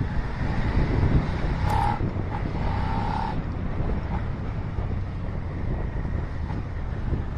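Suzuki SV650's V-twin engine pulling under acceleration through the gears in town riding, with wind rushing over the microphone as speed picks up. Two short beeps sound about two to three seconds in.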